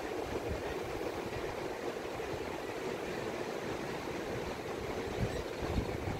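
Gulf surf washing onto the beach as a steady hiss, with wind rumbling unevenly on the microphone.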